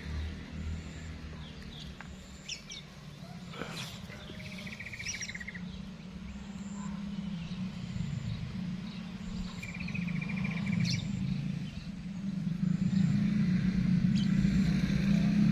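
Small birds chirping, with two short buzzy trills, over a steady low engine hum that grows louder near the end.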